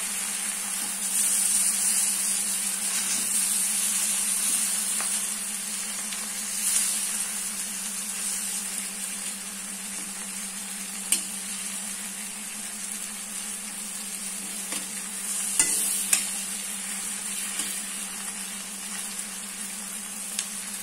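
Fish pieces shallow-frying in oil in a karahi, sizzling steadily, with a metal spatula clicking against the pan a few times, twice in quick succession past the middle. A steady low hum runs underneath.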